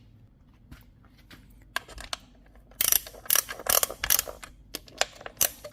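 A run of sharp, irregular metallic clicks and clatters, starting a couple of seconds in, as the felling-dog hardware is worked onto the chainsaw's body.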